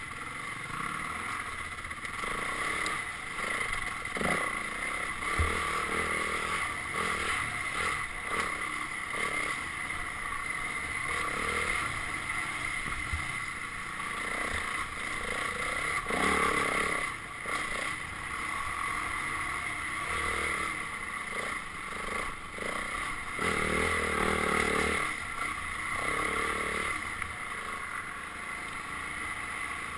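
Dirt bike engine running as it is ridden along a trail, the sound shifting irregularly with throttle and terrain.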